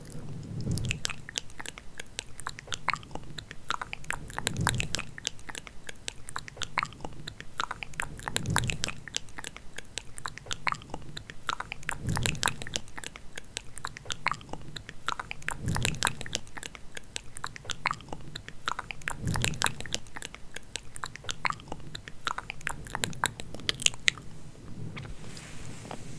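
Hair being combed and played with close to the microphone: dense crackling and scratching, with a soft low swell about every four seconds.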